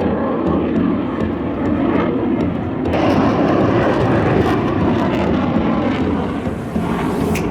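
Fixed-wing aircraft engine noise, loud and steady, as an airplane flies by.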